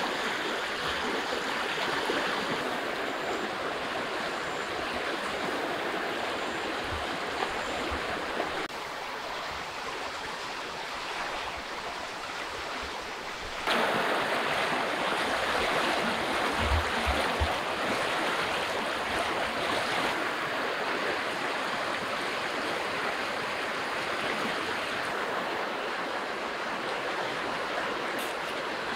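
River water rushing steadily over shallow rapids, a continuous wash of noise. It drops somewhat about a third of the way through and comes back louder about halfway. A few brief low thumps come in between.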